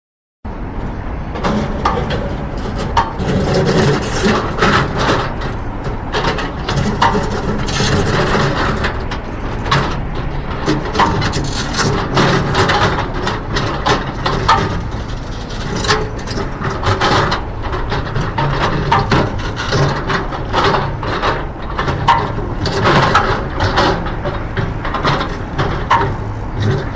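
Construction machinery working: a heavy engine running with a steady low hum under a continuous clatter of frequent knocks and clanks. It starts about half a second in.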